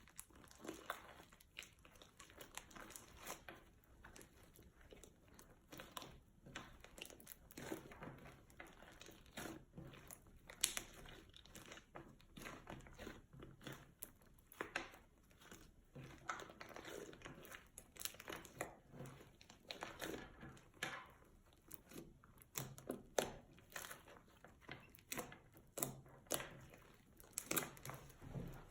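Fluffy slime mixed with add-ins being squished and stretched by hand, giving off a stream of irregular crackly clicks and pops.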